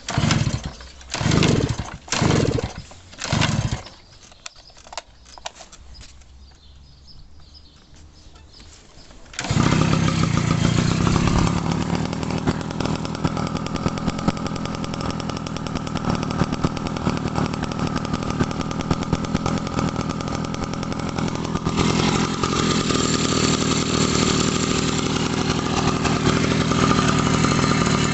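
Daelim two-stroke motorcycle engine being started: four short loud cranking strokes in the first few seconds, a pause, then the engine catches about nine seconds in and runs steadily, sounding a little brighter from about twenty-two seconds in. The engine is newly rebuilt and still breaking in.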